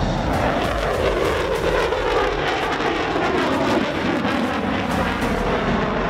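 Loud jet noise from an F-35 Lightning's single Pratt & Whitney F135 turbofan as the jet passes. The pitch drops over the first couple of seconds, then the roar holds steady.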